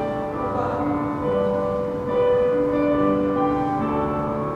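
Slow instrumental background music with long held notes.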